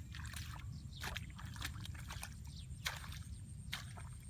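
Water splashing and sloshing in irregular strokes, a handful over a few seconds, as hands or a tool work through water in a fishing hole.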